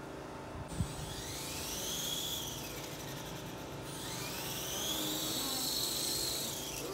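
Small 3D-printed electric RC helicopter's brushless main and tail motors and rotors whining as it lifts off and flies. The whine rises and falls in pitch twice, with a light click about a second in.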